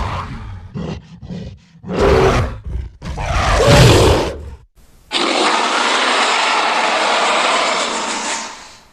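Sound-effect roars and grunts of a giant gorilla: a roar at the start, a string of short grunts, then two more roars, the last and loudest about four seconds in. After a short gap comes a steady rushing hiss lasting about three seconds that fades away near the end.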